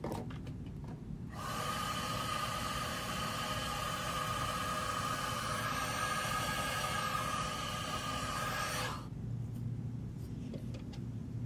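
Handheld hair dryer running steadily, a rushing blast of air with a steady whine, blowing on freshly applied wig glue to dry it. It switches on about a second in and cuts off about nine seconds in.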